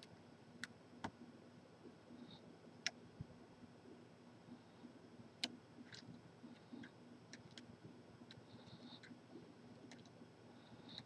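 Faint, irregular small metallic clicks and ticks: lock picks working in the keyway of a large Corbin padlock.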